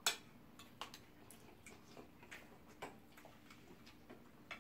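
Eating sounds: a string of irregular, short sharp clicks and smacks, the loudest right at the start, from a fork on a plate and mouths chewing rice and stew.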